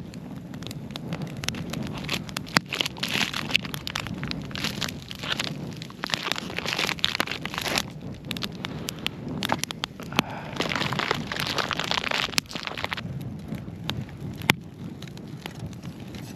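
Plastic packaging crinkling and rustling in several bursts as it is pulled off corn cobs. Under it a wood campfire crackles with sharp scattered pops.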